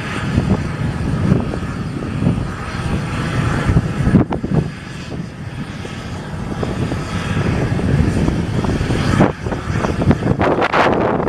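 Airliner engines running close by, a loud steady rumble with a faint whine above it.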